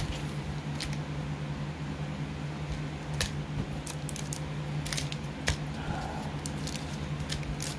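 Scattered light clicks and crinkles of foil Wilds of Eldraine set booster packs being picked up and handled, over a steady low hum.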